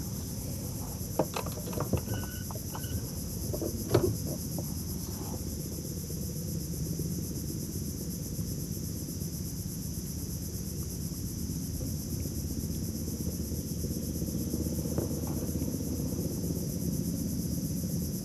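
Steady shrill chorus of insects from the mangroves, over a low steady rumble. A few light knocks in the first four seconds, the loudest about four seconds in.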